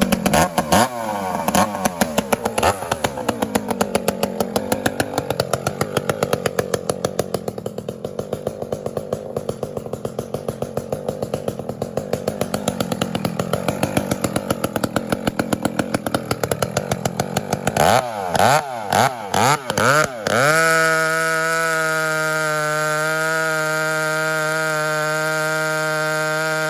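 Two-stroke chainsaw running under load, its engine speed wavering as it works through the wood. About eighteen seconds in it is blipped several times, then held at a steady high whine.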